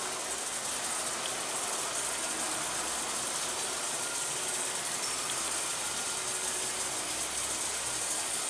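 Steady sizzling hiss of oxalic acid vaporizing in a battery-heated beekeeping sublimator, with a few faint ticks.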